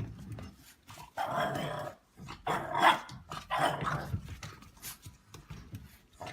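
A dog vocalizing in about four short bouts, each under a second, the later ones fading.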